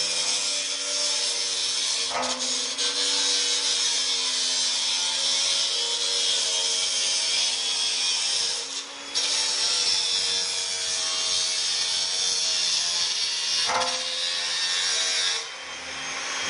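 Metal fabrication work on a staircase: a steady harsh hiss over a faint hum. It stops briefly about 2, 9 and 14 seconds in and turns quieter near the end.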